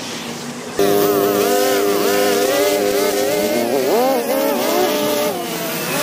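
Gas string trimmer engine opened up to full throttle with a sudden jump in loudness about a second in, then running high with its pitch wavering up and down as the line cuts grass at a sidewalk edge.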